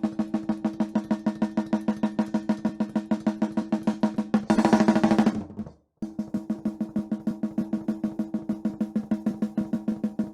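Close-miked snare drum track from a metal recording played back on its own: rapid, even hits, about six a second, each with a ringing tone. A louder, hissier stretch comes about four and a half seconds in, and the playback then stops briefly and restarts about six seconds in.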